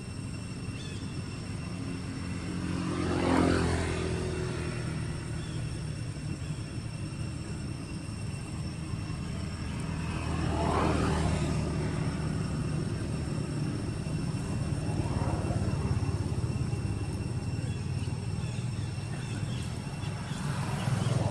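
Steady low rumble of passing motor traffic, with vehicles swelling up and fading away about four times.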